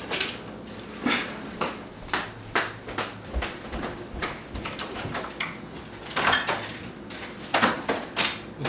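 Footsteps walking away with a wheeled suitcase, a series of short knocks about twice a second, then the front door being opened.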